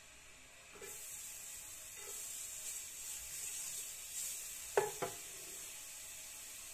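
Minced garlic sizzling in hot olive oil in a nonstick frying pan, the sizzle starting about a second in. A slotted wooden spatula stirs it and knocks against the pan a few times, twice sharply near the five-second mark.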